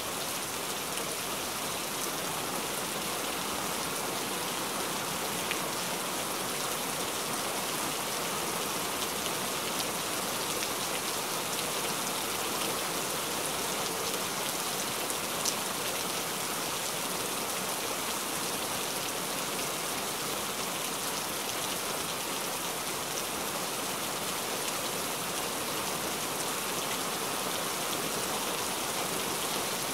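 Steady rain, an even hiss of falling rain with scattered faint drop ticks and one sharper tick about halfway through.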